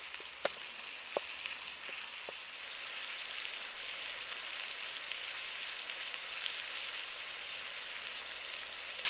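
Sirloin steak and vegetables frying in a Trangia 27 pan over a spirit burner with the simmer ring on: a steady gentle sizzle that slowly grows louder, with a few faint ticks in the first two seconds.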